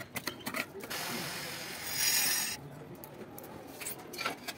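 A hand-held tool scraping over a rough cement-plastered wall, first in a run of short strokes, then one longer, louder scrape that stops about two and a half seconds in.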